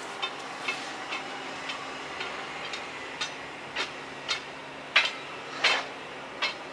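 Diesel locomotive creeping slowly, its engine a steady low hum under a run of sharp metallic knocks, about two a second, that grow louder and are loudest about two-thirds of the way through.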